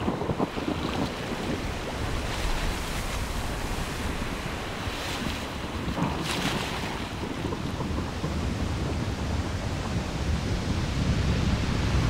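Thunderstorm recording: a steady rush of rain with low thunder rumbling, the rumble growing louder near the end.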